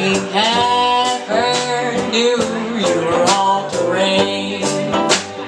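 Live band playing an instrumental passage of a folk song: acoustic guitar and drum kit under a lead melody line that slides between notes.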